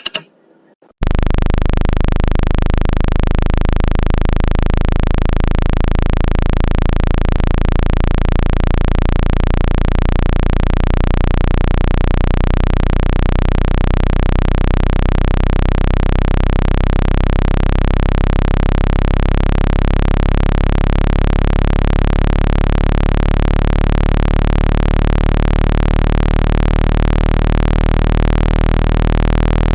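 Synthetic speaker-cleaning tone, a loud low buzz with many even overtones, starting about a second in and holding steady with a slight fast pulsing. It is played through a phone speaker to vibrate the cone and shake dust and water out of the grille.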